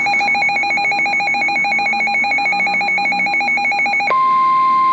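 Emergency alert signal for a severe thunderstorm warning: a loud electronic tone warbling rapidly and evenly. About four seconds in it switches abruptly to a single steady tone, the weather radio's warning alarm tone that comes before the spoken warning.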